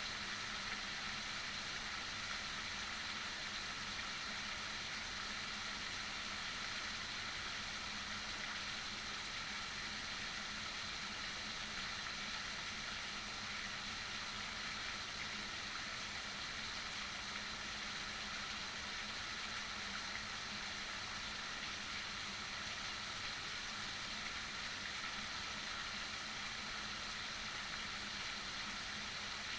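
Heavy rain falling steadily, an even unbroken hiss with no single drops or gusts standing out.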